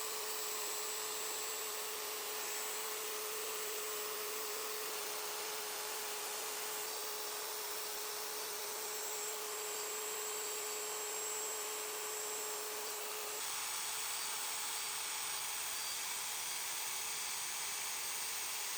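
Plunge router fitted with a fine CNC detail bit in a 1/2-to-1/8 collet, running steadily while carving fine detail into pallet wood. Its steady whine shifts in pitch and tone about thirteen seconds in.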